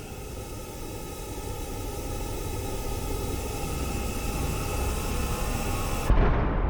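Suspense sound effect: a hissing riser with several held droning tones swells louder for about six seconds, then cuts into a deep impact hit near the end whose low boom rings on while the hiss drops away at once.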